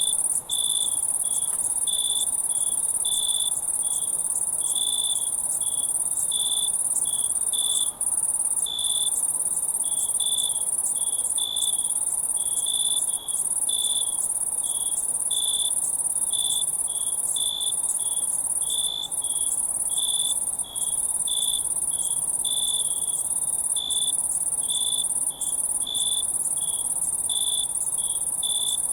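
Crickets chirping: a steady, very high-pitched insect trill runs continuously, with lower chirps repeating irregularly, one or two a second.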